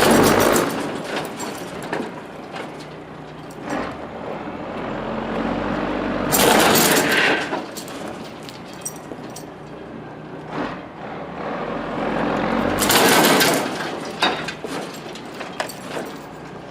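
Pickup truck pulling on a chain tied to a tree, its engine revving in three loud surges about six seconds apart, each with a burst of rough noise as the truck strains against the tree.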